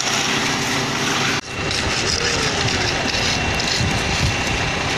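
Concrete mixer truck's diesel engine running steadily with a heavy, noisy rumble, dipping briefly about one and a half seconds in.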